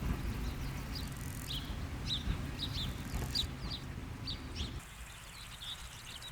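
Small birds chirping, many short falling chirps in quick irregular succession, over a low rumble of wind that stops abruptly near the end.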